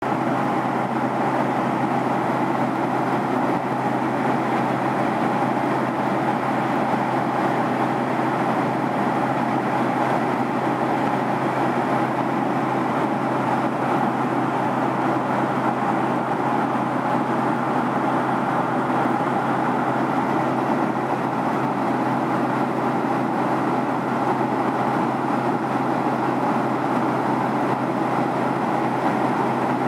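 Steady cabin noise of a jet airliner in flight: the constant rush of engines and airflow, with a low steady hum underneath.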